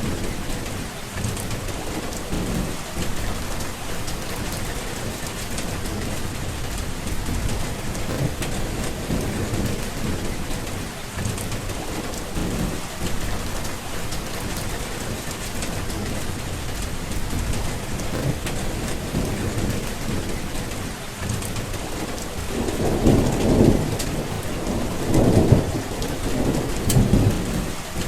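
Steady rain falling, with low rolls of thunder rumbling under it; the thunder swells strongest in three rumbles near the end.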